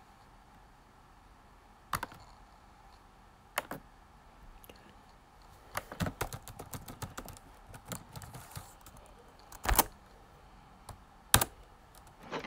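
Computer keyboard typing: a quick run of keystrokes about six seconds in, with a few louder single clicks before and after it.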